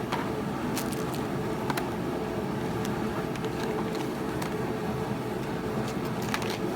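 Steady mechanical hum with a constant low tone, with scattered light clicks and clinks of metal tools being handled in a tool box drawer.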